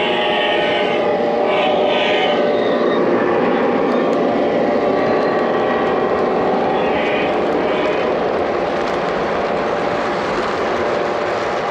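Lionel O-gauge model EMD DD35A diesel locomotive passing close by under power, with its onboard sound system playing a steady diesel engine drone over the rumble of the wheels on the three-rail track. After the locomotive come the freight cars rolling past.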